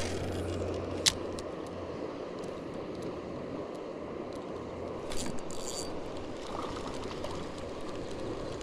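A cast with a spinning rod and reel: a short hiss of line paying off the spool about five seconds in, over a steady rushing background noise, with one sharp click about a second in.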